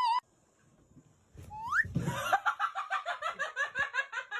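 A wavering animal howl cuts off just at the start. After a second's quiet comes a short rising squeal, then a fast run of laughter at about five pulses a second.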